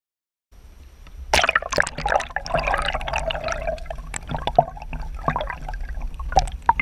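Water sloshing and bubbling, picked up by an underwater camera: a low rumble starts about half a second in, and just over a second in, irregular splashy clicks and gurgles come in on top of it.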